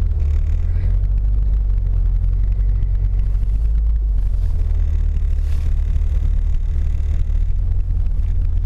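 Peugeot 205 driving slowly over a snow-covered road, heard from inside the cabin: a steady low rumble of engine and road noise.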